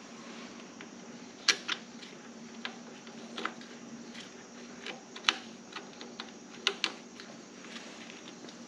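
Light, irregular metallic clicks and taps of a small screwdriver working on a GIVI badge plate on a steel motorcycle crash bar as the badge is fastened on, about ten in all, the sharpest about one and a half and five seconds in. A steady low hum runs underneath.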